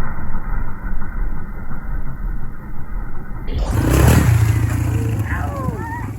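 Toyota 22RE 2.4-litre four-cylinder engine running, with a rev about four seconds in.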